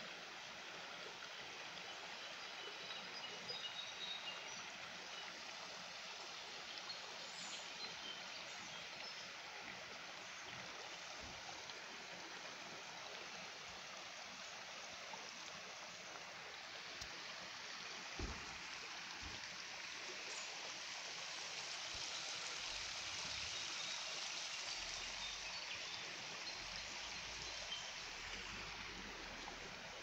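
Shallow forest stream running over rocks: a steady rush of water, a little louder in the second half. A single low knock comes about 18 seconds in.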